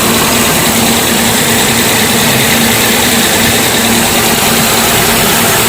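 Kia Picanto engine idling with a steady hum from its noisy AC compressor, which still cools well enough that the mechanic judges it not worth replacing.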